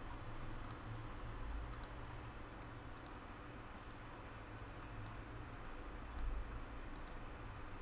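Faint computer mouse clicks, some single and some in quick pairs like double-clicks, scattered over a steady low hum and hiss.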